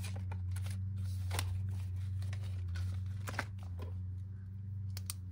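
Paper banknotes and a clear plastic binder envelope being handled: a few short rustles and crinkles as a bill is slid into the sleeve and pressed flat. A steady low hum runs underneath.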